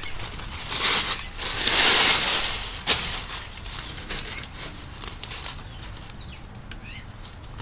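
Rustling, crinkling handling noise from a strip of pipe wrap tape being handled and wrapped around foam pipe insulation. The noise comes in two louder spells in the first couple of seconds, with a sharp click about three seconds in, then goes fainter.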